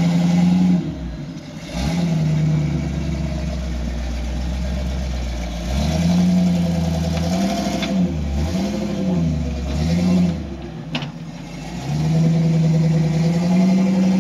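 Off-road 4x4's engine revving up and down in repeated bursts under load as it climbs a rock ledge, with a sharp knock about eleven seconds in.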